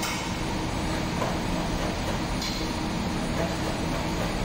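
Steady low hum of a ship's machinery and ventilation.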